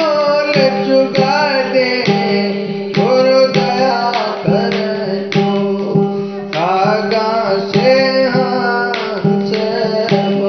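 Instrumental interlude of a Hindi devotional song: a lead melody that bends and slides in pitch over a steady held drone and a regular beat.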